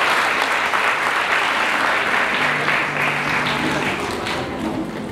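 Audience applauding after a speech, thinning toward the end, as background music comes in about halfway through.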